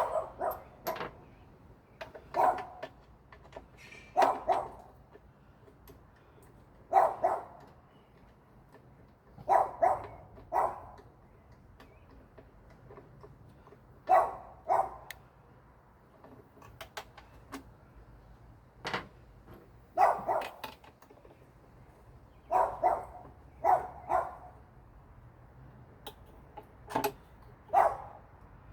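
A dog barking repeatedly, in single barks and quick pairs every couple of seconds, with short pauses between.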